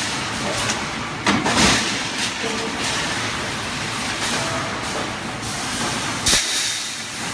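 Wire mesh welding machine running: a steady hissing machine noise with a few sudden louder bursts, the strongest about a second and a half in and another near the end.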